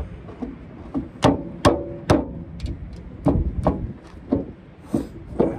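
Sharp wooden knocks and clunks, about half a dozen at irregular intervals, as hardwood apitong deck boards are shifted and knocked into their tongue-and-groove fit on a trailer deck.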